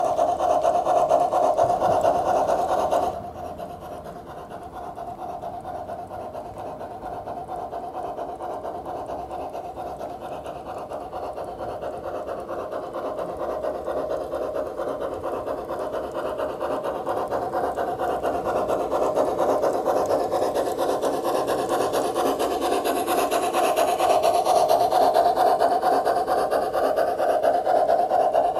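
G-scale Bachmann Climax model locomotive running, its Soundtraxx Tsunami sound decoder playing a fast, rasping chuff through its speaker. The sound drops sharply about three seconds in, then grows steadily louder as the train comes closer.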